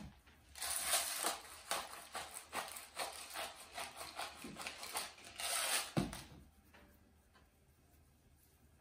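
A hand-twisted grinder bottle grinding seasoning onto raw steak: a rapid, crackly run of clicks for about five seconds. A low thump near six seconds in as the bottle is set down on the wooden cutting board.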